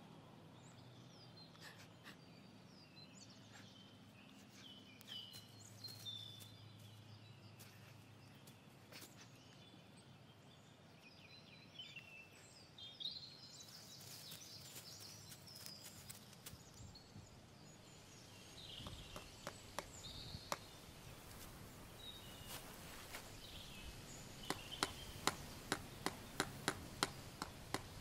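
Quiet outdoor ambience with faint, scattered bird calls. In the last few seconds there is a run of sharp ticks, about two a second.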